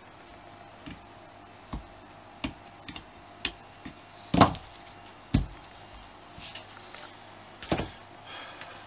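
Sharp metal clicks and small knocks of a flat screwdriver working against a Honda CB125S carburettor body, roughly one every half second, then a few louder knocks as the screwdriver and the carburettor are set down on the bench, the loudest a little past the middle.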